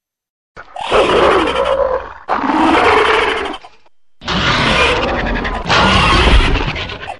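Monster roar sound effects for Ookondoru, the giant condor kaiju: four harsh roars of about a second and a half each, played back to back with abrupt cuts, beginning about half a second in.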